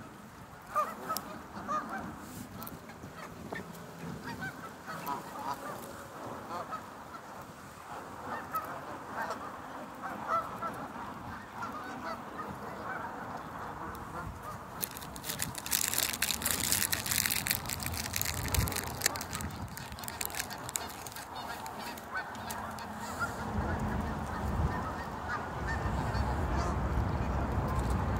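Canada geese honking at close range, many short calls throughout. A few seconds of crackly rustling past the halfway mark, and a low rumble building near the end.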